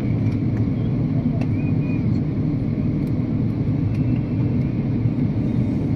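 Steady low rumble of engine and airflow noise inside the cabin of an Airbus A330-200 in flight, heard from a window seat.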